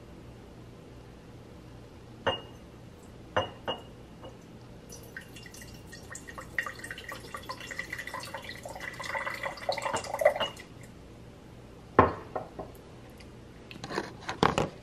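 Homemade kombucha poured from a bottle into a glass for about five seconds, with sharp glass clinks and knocks before and after the pour. The brew is only lightly carbonated.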